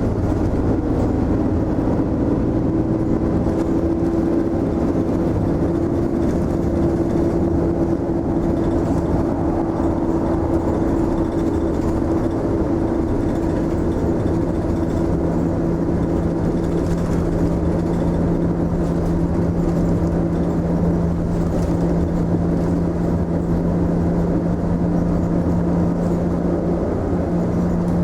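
Mitsubishi Fuso Aerostar city bus under way, heard from inside the cabin: steady engine and road noise with a drawn-out drive whine. A higher tone fades out around the middle and a lower tone takes over, as the bus's speed and load change.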